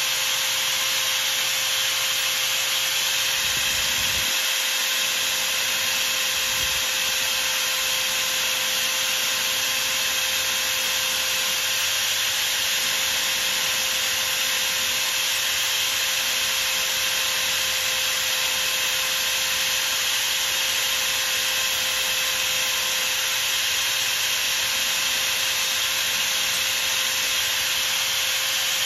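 Metal lathe running steadily with a high motor whine, while abrasive paper is held against the spinning brass-and-steel part, giving a continuous hissing rub.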